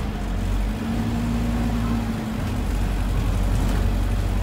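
Minibus cabin noise while driving: a steady low engine rumble with a faint hum and road noise.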